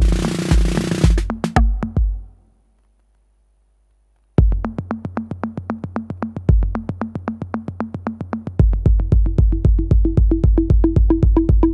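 Behringer RD-8 analog drum machine (an 808 clone) playing a minimal electro beat: booming kick drums with long tails under rapid sharp ticks, with a wash of noise in the first second. About two seconds in the pattern cuts out for nearly two seconds of silence, then drops back in. Later the kick quickens to about four hits a second, with a pitched drum tone added.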